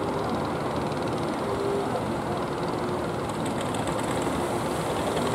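Engines of wooden fishing boats running steadily as the boats pass close by, mixed with the wash of waves.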